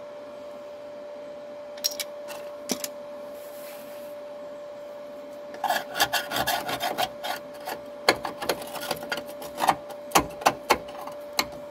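A thin metal hand tool scraping and picking at rusty sheet steel at a cut edge of an Opel Manta B's A-pillar: a few sharp scrapes about two seconds in, then a quick, busy run of scrapes and clicks from about six seconds on. A steady faint hum runs underneath.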